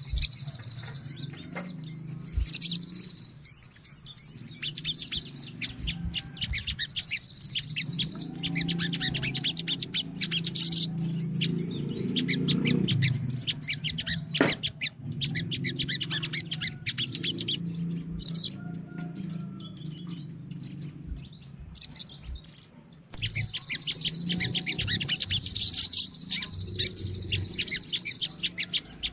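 Many sogon birds calling together: a dense, rapid run of high-pitched chirps and twitters, thinning out for a few seconds past the middle, over a steady low rumble.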